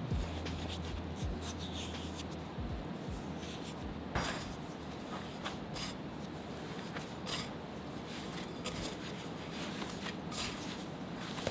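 Whole wheat flour and water being mixed in a glass bowl into a shaggy dough, first stirred with a spatula and then worked by hand: dry rubbing and scraping against the bowl with scattered light knocks. A low steady hum runs under the first few seconds.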